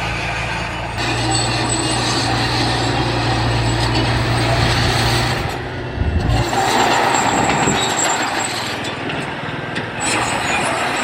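Diesel engine of heavy earth-moving machinery running under load, with a steady engine note for about the first half, a low rumble about six seconds in, and a harsher, noisier sound after it.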